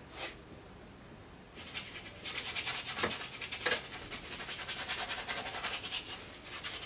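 Paintbrush scrubbing stiff, barely thinned oil paint onto canvas in a quick run of short, scratchy hatching strokes, starting about a second and a half in.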